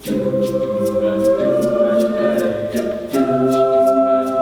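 High school madrigal choir singing a cappella, holding sustained chords that shift to a new chord about three seconds in.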